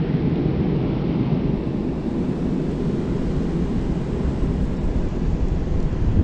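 Strong wind buffeting the microphone, a steady low rumbling roar.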